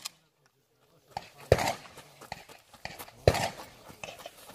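Two sharp shotgun shots about two seconds apart, each with a short ring-out, and lighter clicks and knocks between them.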